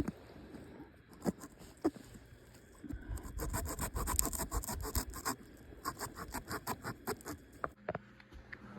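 Rapid crunching and scraping on the forest floor, a run of several crunches a second that thickens about three seconds in and stops near the end.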